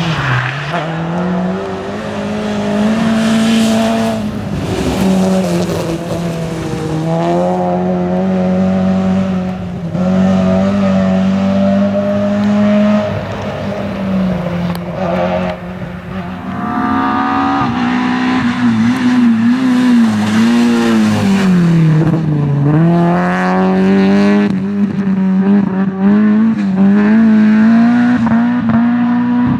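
Rally car engines run at high revs, with the pitch dipping at gear changes and lifts and then climbing again. Tyres squeal at times.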